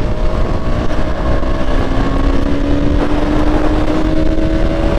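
KTM Duke single-cylinder motorcycle engine running while riding, its pitch rising slowly and evenly as the bike gains speed. Heavy wind rumble on the microphone lies under it.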